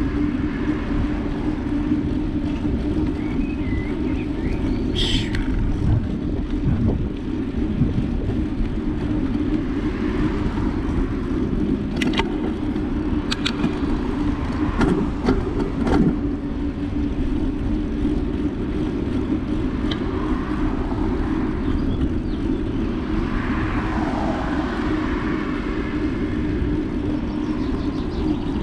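Steady wind and road rumble from riding a bicycle, with a few sharp clicks about halfway through.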